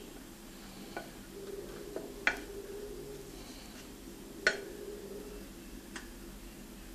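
Wooden spoon spreading a thick mascarpone cream layer in a glass dish, the spoon knocking lightly against the glass five times, loudest a little after two seconds in and at about four and a half seconds in.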